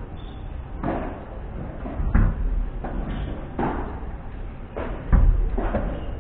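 Padel rally: the ball struck by paddles and bouncing off the court and glass walls, a string of sharp knocks, two of them heavy thuds about two and five seconds in.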